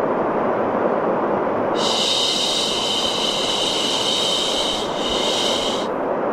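A steady, even hiss of low white noise with a person's "shhh" shushing laid over it: one long shush starting about two seconds in, then a shorter one ending shortly before the end.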